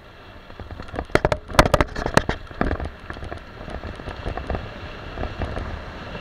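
Mountain bike descending a dirt trail: tyres rumbling over the ground and wind on the microphone, with a run of sharp clacks and rattles between about one and three seconds in as the bike rattles over bumps.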